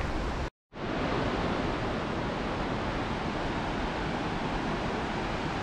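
Steady rush of a fast mountain creek's water, an even hiss with no change in pitch, broken by a brief dropout about half a second in where the sound cuts out completely.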